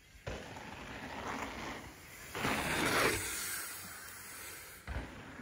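Rushing wind on the microphone and rolling mountain-bike noise as the rider takes a jump; the rush swells about halfway through, then eases, with a short knock near the end.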